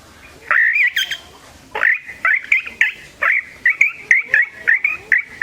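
A man imitating a kite's call with his voice: one drawn-out high whistle, then a quick run of short whistled notes, about three or four a second.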